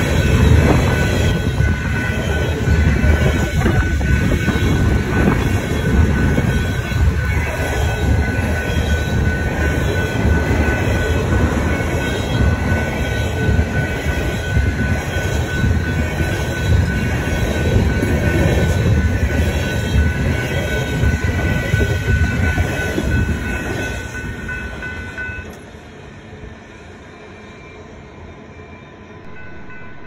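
A freight train of empty ethanol tank cars rolling past, a loud rumble and rattle of wheels on rail with a steady high ringing tone over it. The noise falls away sharply about 24 seconds in as the train clears.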